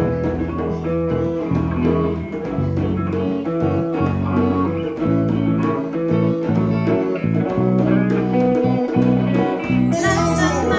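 Band playing an instrumental passage: electric guitar over bass guitar, with a steady percussion beat.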